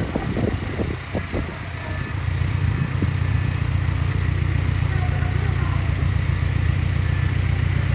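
An engine of heavy earthmoving machinery running steadily, getting louder about two seconds in and holding a constant low hum, with a few brief voices in the first couple of seconds.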